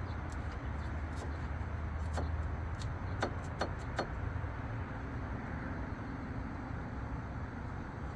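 Light clicks and knocks from a hand handling a disc brake caliper and rotor on a bare front hub, about four of them between two and four seconds in, over a steady low rumble.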